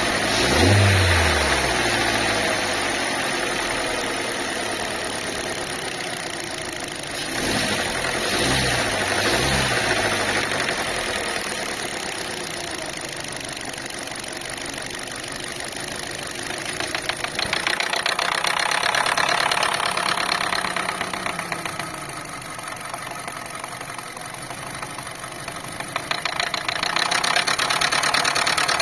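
Car engine running, revved up briefly near the start and again about seven seconds in. A fast, rhythmic knocking sounds from the engine bay and comes up louder in two stretches later on.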